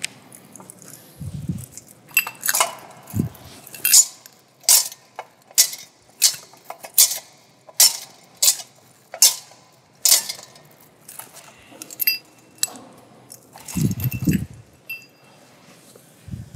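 A series of bright metallic clinks, about two a second, beginning about two seconds in and stopping after roughly ten seconds, typical of a censer's chains striking its bowl as it is swung to incense the Gospel book. A few low thumps are heard near the start and near the end.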